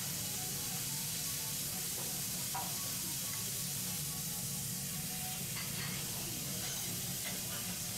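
Food sizzling steadily on a hot teppanyaki iron griddle, with a few faint clicks.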